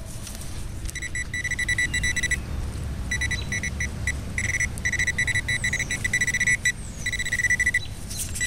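Metal-detecting pinpointer probe beeping in rapid, high-pitched pulses, in runs broken by short gaps, starting about a second in. The probe is falsing, sounding off like crazy with no target.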